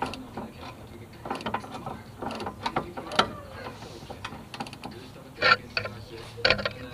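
Ratchet wrench clicking in short, irregular runs as it turns a bolt on a car's rear brake caliper.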